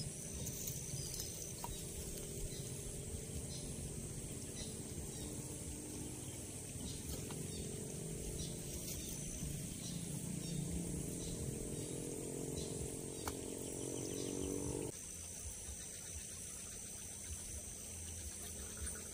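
Rural outdoor ambience with a steady high chirring of insects. Under it runs a low drone of several steady tones that stops abruptly about fifteen seconds in.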